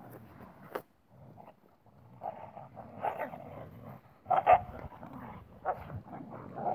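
Huskies and husky puppies playing together, giving short yips and growls in scattered bursts, loudest twice in quick succession about four and a half seconds in.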